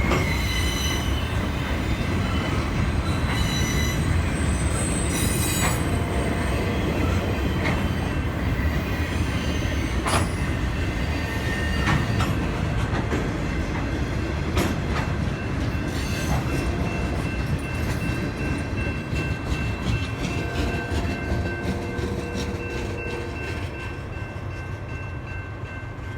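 Freight cars of a BNSF manifest train rolling past, with steady high wheel squeal and occasional sharp knocks from the wheels and cars. The sound slowly fades over the last several seconds.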